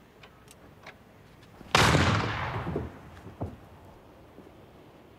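A single gunshot, sudden and loud, about two seconds in, ringing out and dying away over about a second. A few faint clicks come before it.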